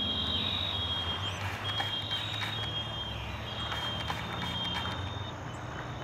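Insects trilling in high, steady tones that break off and start again, over a low steady hum.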